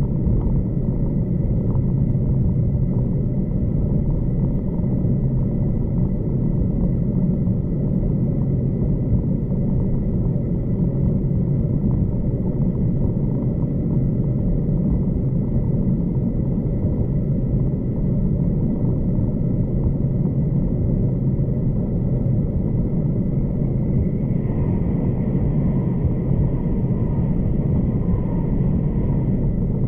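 Steady rumble of a V/Line passenger train running along the track, heard from inside the carriage, with a thin steady high tone above it. For the last five seconds or so a faint wavering higher noise joins in.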